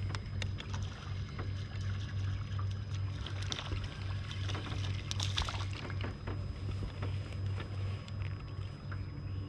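Fishing reel and line clicking as a small smallmouth bass is reeled in and swung aboard, with a denser rustle of handling noise about five seconds in, over a low hum that pulses about twice a second.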